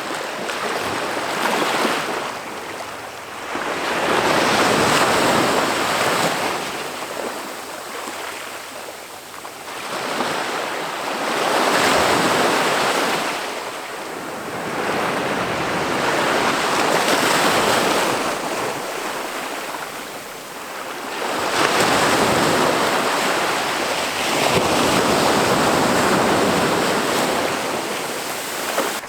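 Ocean waves breaking on a beach and washing up the sand. The surf noise rises and falls in slow surges, roughly every five to seven seconds.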